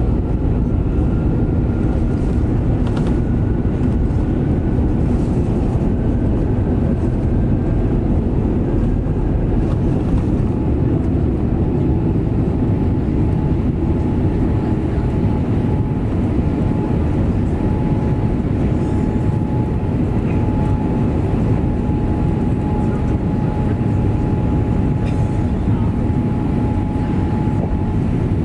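Boeing 787-8 airliner's jet engines running, a loud, steady, heavy rumble with a thin steady whine above it that becomes clearer about a third of the way in.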